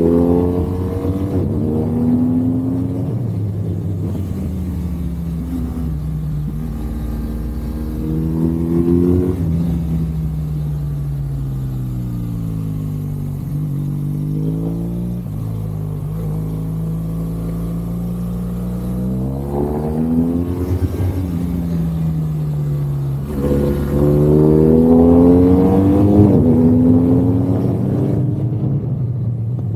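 BMW R1200 GSA motorcycle's boxer-twin engine under way, its pitch falling as the bike slows for bends and rising again as it accelerates out of them. Near the end the revs climb more strongly and the engine gets louder.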